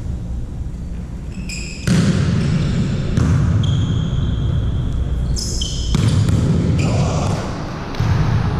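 Volleyball play on an indoor court: the ball being hit and bouncing on the floor, with high squeaks through the middle, over a loud low rumble of the hall.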